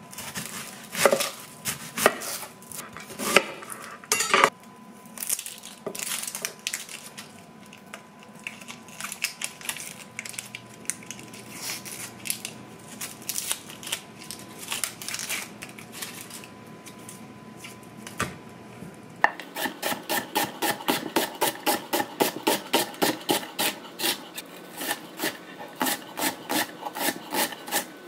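Onion being cut with a chef's knife on a wooden end-grain cutting board. First come scattered knocks and rubbing as the onion is peeled and halved. From about two-thirds of the way through, quick, even chopping strokes follow, about three to four a second, as the onion is sliced and diced.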